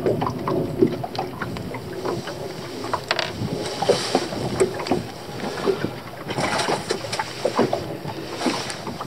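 Choppy lake water lapping and slapping against a small boat's hull in the wind, with scattered knocks and clicks on board. There are three louder rushes of hiss, one near the middle and two toward the end.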